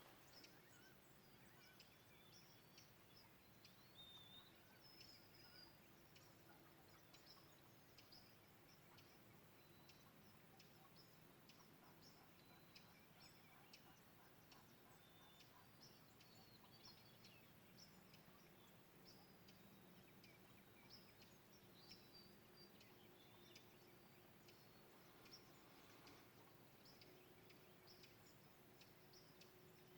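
Faint birdsong: many short high chirps and whistles from several birds, scattered through the whole stretch over a low, steady background hum.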